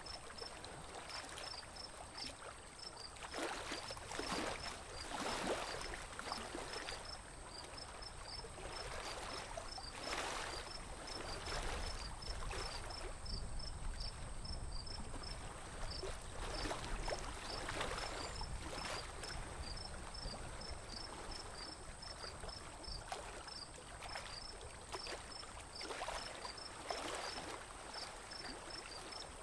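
Lake water lapping and splashing gently around a small wooden boat, in uneven swells every second or two. A high chirping pip repeats about three times a second.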